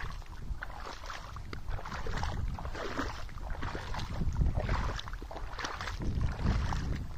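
Irrigation water running and trickling along an earthen furrow channel, with a low rumble of wind on the microphone.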